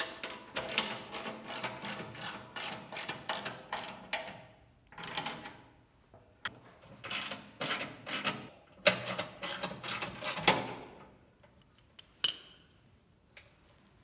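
Socket ratchet clicking in quick runs of about five clicks a second as it turns the bolts of a snowblower's skid shoes: one long run over the first four seconds or so, then several shorter runs with pauses between, and a last lone click near the end.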